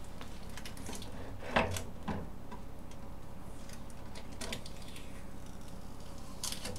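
Sparse light clicks and crackles as packing tape is peeled off a 3D printer, with one sharper click about a second and a half in.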